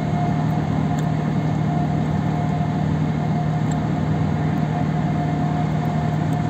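Steady drone of ship machinery: a constant low engine hum with a fainter, higher steady tone above it, unchanging throughout.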